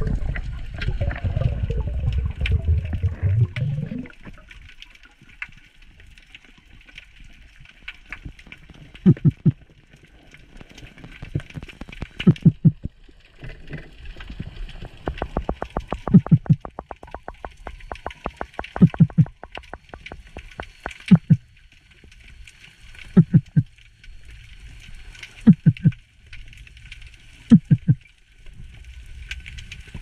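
Water rushing for about the first four seconds, then short rattling bursts of rapid clicks every two to three seconds. These are the noises a spearfisher makes underwater during an ambush wait to draw fish in.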